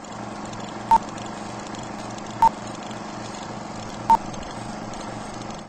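Intro sound effect: three short, loud electronic beeps at one pitch, about a second and a half apart, over a steady hiss with a low pulsing hum.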